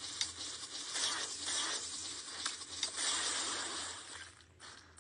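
Soft rustling with scattered light taps as a kitten paws at a smartphone held in a person's hands, over a low steady hum; it fades out near the end.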